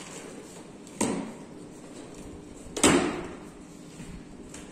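Packaging of a large cardboard carton being handled and pulled open, with sharp knocks that ring briefly in the room: one about a second in, a louder one near three seconds, and another at the very end.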